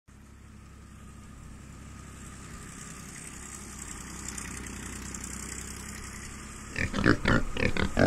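A low, steady engine hum that slowly grows louder, then, near the end, a rapid run of pig grunts, about four a second.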